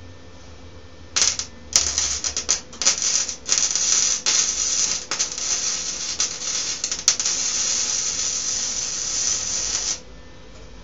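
Electric welding arc crackling: a few short stuttering starts about a second in, then a steady run of about six seconds that cuts off suddenly near the end.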